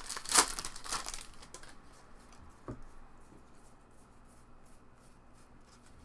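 A baseball card pack's foil wrapper tearing open and crinkling, loudest in the first second and a half, then faint rustling as the cards are handled.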